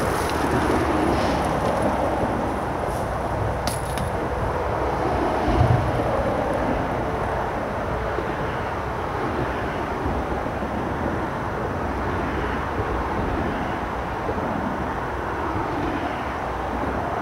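Steady rumble of road traffic from a busy bridge, with a low buffet of wind on the microphone about five and a half seconds in and a brief click about four seconds in.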